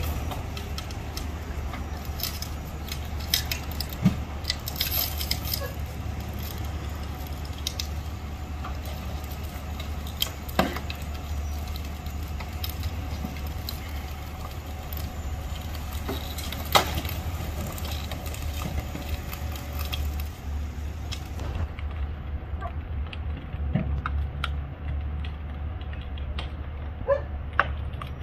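Flatbed tow truck's engine running with a steady low hum while its winch pulls an overturned pickup over, with scattered metal clanks and knocks.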